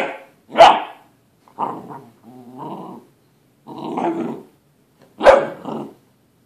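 Eight-week-old Great Dane puppy growling and barking in play: three sharp barks, at the start, just after half a second and about five seconds in, with short growls between them.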